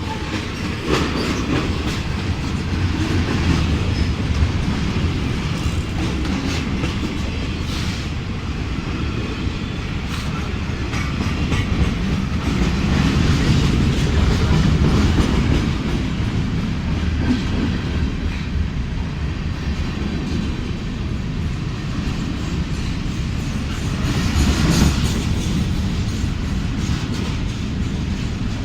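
Freight train cars rolling past, their steel wheels clacking over the rail joints with a steady rumble. The sound swells a little around the middle and again near the end.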